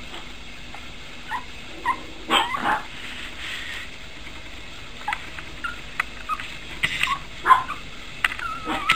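Pomeranian puppy giving a series of short, high-pitched yips and whimpers, a dozen or so scattered through, some in quick pairs.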